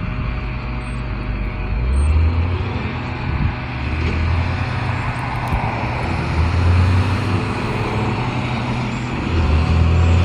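Road traffic going by: a steady rumble of engines and tyres, with the low rumble swelling about four times as vehicles pass.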